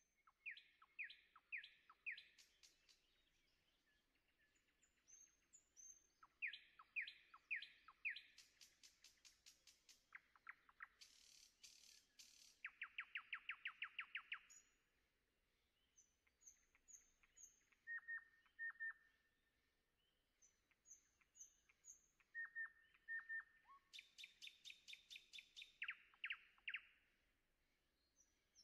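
Birdsong: phrases of quick repeated chirps, a fast trill and short high whistled notes, with pauses between phrases.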